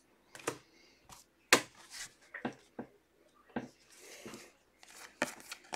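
Trading cards being handled on a table: scattered faint taps and clicks of cards and card stacks being set down and shuffled, with a soft rub of card on card a little past the middle.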